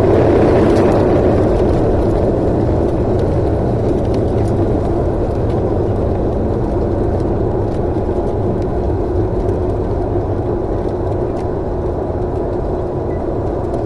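Steady running drone of a vehicle in motion, with a low hum held on one pitch.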